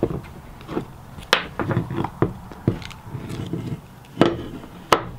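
Metal hard drive case parts clicking and knocking as the pried-open cover is lifted off and the pieces are handled and set down on a wooden workbench: a scattered series of short knocks, two of them sharper.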